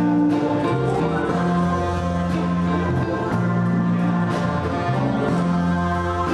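Live small band playing: a saxophone holds long notes over keyboard, electric guitars and a drum kit, with cymbal strokes recurring through the passage.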